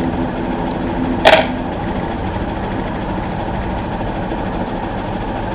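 Steady mechanical hum of room noise, with one sharp click a little over a second in.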